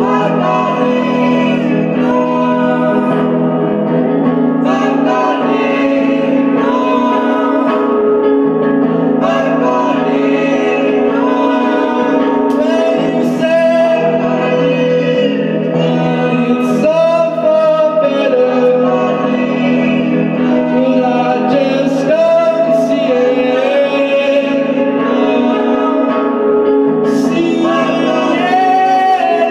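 Music: a voice singing a slow melody of held, gliding notes over a steady low accompaniment.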